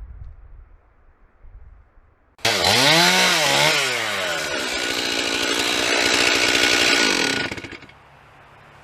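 Two-stroke chainsaw starting up loud about two seconds in, revving up and down a few times, then running steadily at full throttle as in a felling cut, and dropping off near the end.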